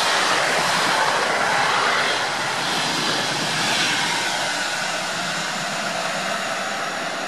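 Passenger coaches of an InterCity train passing through the station at speed: a steady rushing of wheels on rail and moving air that slowly fades as the last coach pulls away.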